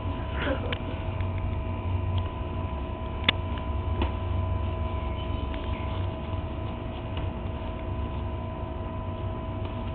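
Steady electrical hum with two thin constant tones over a low rumble, and a few faint sharp clicks, the clearest about three seconds in.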